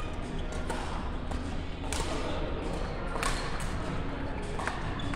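Badminton rackets striking a shuttlecock in a singles rally: about four sharp hits, roughly a second and a third apart, over steady background noise.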